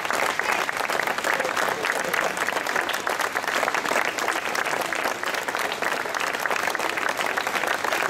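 Audience applauding steadily, many hands clapping at once, at the end of a performance.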